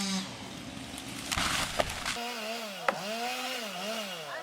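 Wood snapping and a crashing noise for the first two seconds, then a chainsaw running, its pitch rising and falling in smooth swells.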